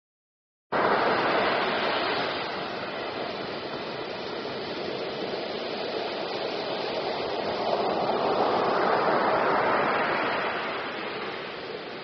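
Ocean surf breaking and washing up the shore: a steady rushing noise that starts abruptly about a second in, eases off, then swells again as another wave breaks before settling near the end.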